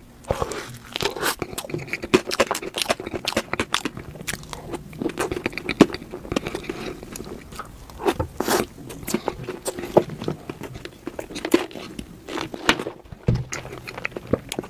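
Close-miked mouth sounds of a person eating a soft layered cream cake: biting and chewing, with many quick wet clicks from the mouth.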